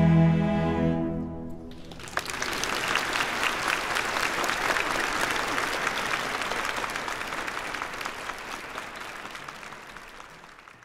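A massed cello ensemble holds a final chord, cut off about a second and a half in. Audience applause follows and fades out near the end.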